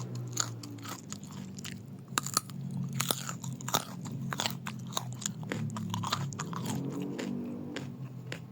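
A person chewing and eating honey sweet potato, with many short wet mouth clicks and smacks.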